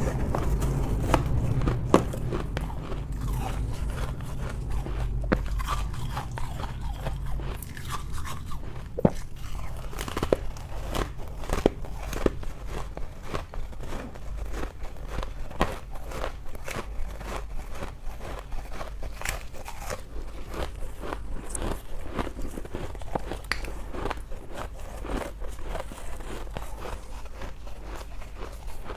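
A person biting and chewing thin ice, close to the microphone: many sharp, irregular crunches throughout, over a low steady hum.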